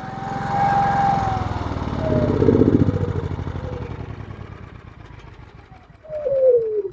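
GENMAX GM9000iED inverter generator's engine running, then winding down: the whine falls steadily in pitch and the firing slows and fades, with a last falling whine near the end.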